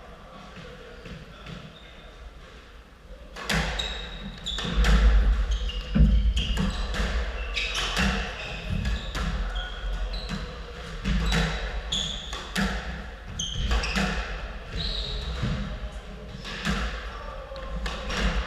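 A squash rally: sharp racket strikes and the ball hitting the court walls at an irregular pace, with shoes squeaking on the wooden floor, all echoing in the enclosed court. It is quieter until play starts about three and a half seconds in.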